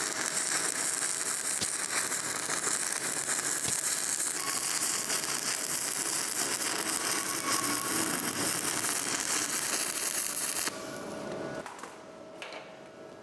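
Stick (MMA) welding arc from a 3.2 mm high-tensile electrode at 140 A, crackling and sizzling steadily, then cutting off abruptly near the end as the arc is broken.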